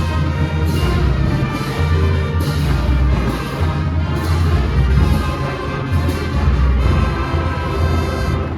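Marching band playing a parade tune: brass carrying the melody over a strong low bass line, with drum and cymbal strokes on a steady beat.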